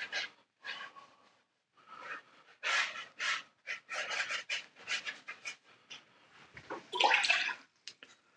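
Watercolour brush swishing wet paint across damp Baohong Master's Choice medium watercolour paper in a wet-on-wet wash: a run of short, irregular strokes, with a louder swish about seven seconds in.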